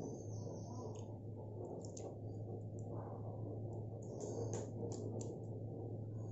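Onion, curd and spice mixture sizzling softly in a pan, with scattered crackles and small clicks as raw chicken pieces are dropped in, over a steady low hum.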